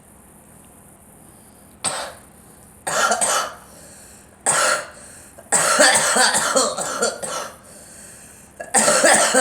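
A girl coughing in bouts: a single cough about two seconds in, then more coughs, the longest a fit of several in a row in the middle, and another bout starting near the end.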